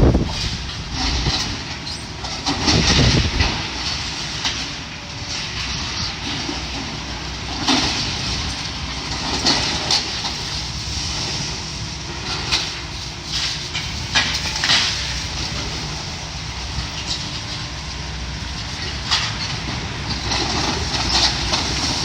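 Demolition excavator running while it tears at a building. Metal and debris clank and crash again and again over a steady engine rumble. The loudest crash comes about three seconds in.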